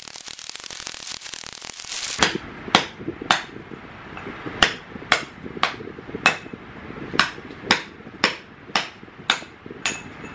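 Hand hammer striking a steel cold chisel into a concrete floor, chipping out concrete. After a dense clatter for about two seconds come sharp blows about two a second, in short runs with brief pauses, each with a short metallic ring.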